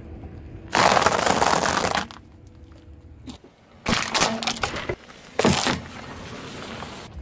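Car tyre rolling onto objects and crushing them under its weight: a long crunching burst about a second in, then shorter cracks and crunches near four seconds, as a plastic toy breaks, and again near five and a half seconds.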